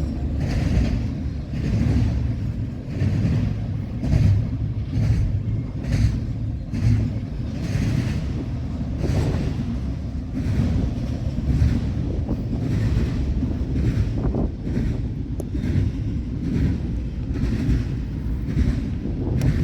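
Steady low vehicle rumble, with irregular gusts of wind noise buffeting the microphone every second or so.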